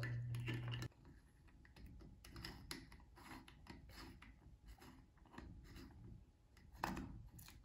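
Faint scraping and clicking of a metal faucet aerator being turned by hand into a tap's internal thread, a few small scrapes spread through, with one slightly louder scrape near the end. A low hum cuts off about a second in.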